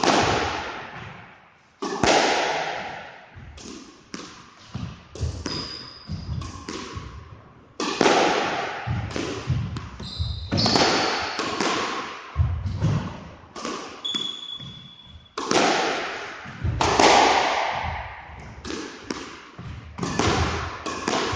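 Squash rally: the rubber ball cracks off rackets and slaps the front and side walls every second or two, each hit ringing on in the echo of the hard-walled court. A few short, high squeaks of court shoes come as the players lunge and turn.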